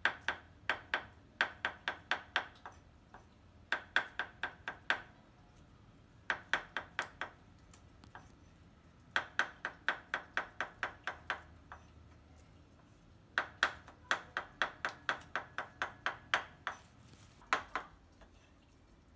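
Cleaver chopping raw shrimp into a mince on a round wooden chopping block, in quick runs of about five strokes a second with short pauses between runs, each stroke ringing briefly. The chopping stops near the end.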